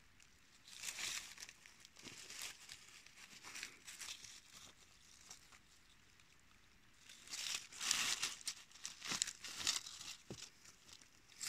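Dry fallen leaves crinkling and rustling as a hand pushes them aside, in short irregular bursts that are loudest and busiest from about seven seconds in.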